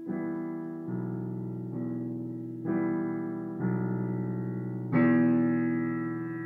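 Piano played slowly, a new chord struck about once a second and left to ring, with a louder one about five seconds in.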